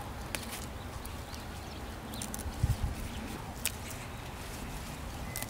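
Red salad greens being picked by hand: a few crisp snaps as leaf stems are broken off, with leaf rustling in between.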